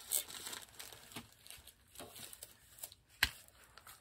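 Handling noises as clear plastic cutting plates and packaging are moved: scattered rustling and light knocks, with one sharp tap a little over three seconds in.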